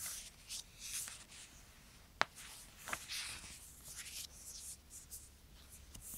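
Faint rustling and sliding of a CD booklet's paper pages and a glossy photo card being handled by hand, with two light clicks close together in the middle.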